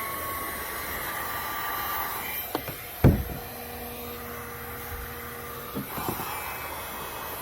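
Electric heat gun running, a steady blowing hiss with a faint motor whine. A single knock about three seconds in, and a low hum from about three and a half to six seconds.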